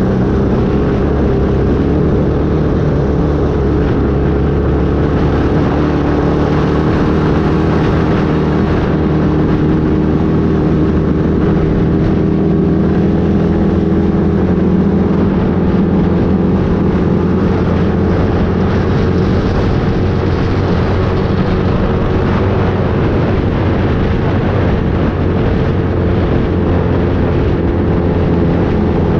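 An engine running steadily at a near-constant speed, its pitch drifting only slightly up and down.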